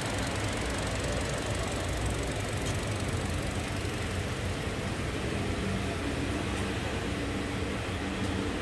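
2015 Chevy Cruze's 1.4-litre Ecotec four-cylinder engine idling steadily.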